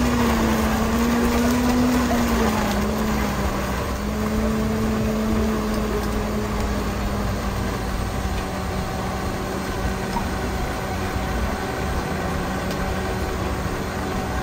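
Countertop electric blender running, blending a fruit smoothie. Its motor hum wavers in pitch for the first few seconds as it works through the fruit, then holds steady. There is market crowd chatter underneath.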